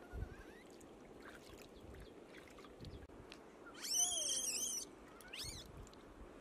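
Animal cries: a few faint calls, then a louder high, warbling call about four seconds in that lasts about a second.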